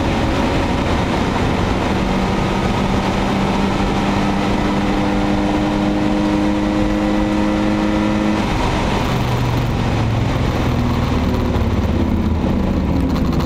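BMW 525i E34's 24-valve straight-six engine under load at track speed, heard from inside the cabin over tyre and road noise. Its note climbs slowly, then drops sharply about eight and a half seconds in and carries on lower.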